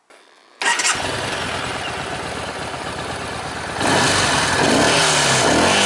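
Yamaha XV950R Bolt's 60-degree V-twin starting: it catches abruptly about half a second in and runs at idle, then is revved, rising and falling, from a little before two-thirds of the way through. It has a husky note through the stock exhaust.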